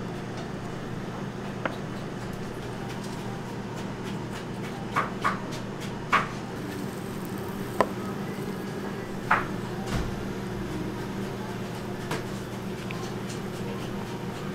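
Steady hum of kitchen equipment under a handful of light knocks and clacks from hands working with trays and food. The knocks fall about halfway through, around six in all.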